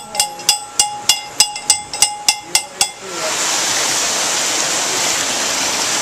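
Metallic clicks with a ringing tone at about three a second, typical of a winch's ratchet pawl; about halfway through they give way abruptly to a steady rush of water pouring down a wooden sluice onto the sawmill's water wheel.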